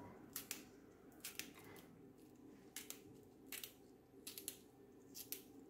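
Kitchen knife slicing through fresh okra pods held in the hand: faint crisp cuts, often two close together, about once a second.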